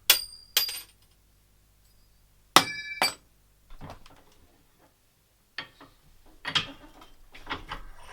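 Metal striking metal: two pairs of sharp clanks, each pair about half a second apart, that ring on briefly, followed by softer clattering and scraping.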